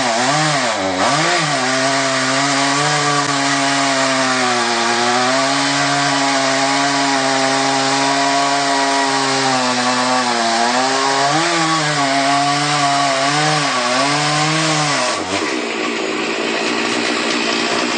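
Chainsaw running at high revs while cutting into a standing tree trunk, its engine note dipping and recovering again and again as the chain bites into the wood. About three seconds before the end the engine note falls away, leaving a steady noise.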